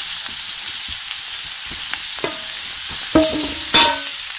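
Root vegetables sizzling in peanut oil in a very hot frying pan, a steady hiss. A few sharp knocks as the pan and vegetables are tossed and stirred, the loudest near the end.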